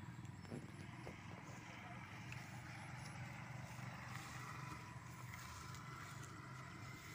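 Faint outdoor ambience: a steady low rumble of distant road traffic, with a few light clicks.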